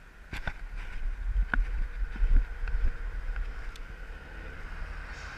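Wind buffeting the action camera's microphone as the rider gets moving, a gusty low rumble that rises about a third of a second in. A few sharp clicks come in the first three seconds.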